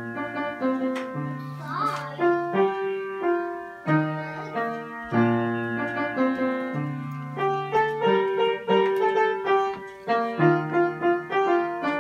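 Background piano music: a melody of held notes and chords.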